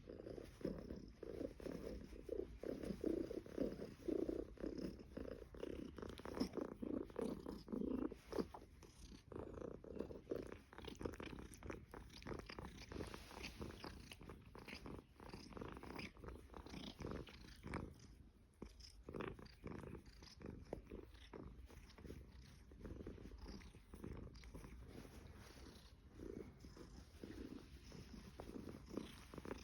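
Somali cat purring steadily, close and strongest over the first eight seconds or so, then softer for the rest.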